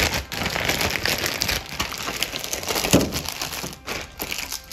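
Plastic packaging crinkling and rustling as the bagged electric motor parts are handled, a dense run of small crackles.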